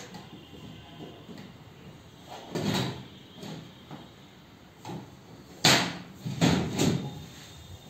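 PVC ceiling panel being pushed and knocked into place by hand: irregular scrapes, knocks and clicks of the plastic. The loudest is a sharp knock about three-quarters of the way through, followed by a few more.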